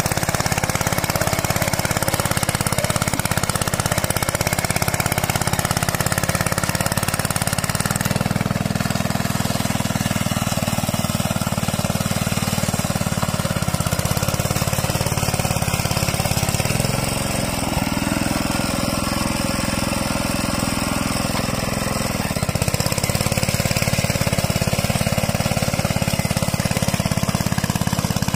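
A hand tractor's single-cylinder diesel engine running steadily as it pulls a plough through grassy ground. About two-thirds of the way through, its note changes and dips slightly for several seconds, then settles back.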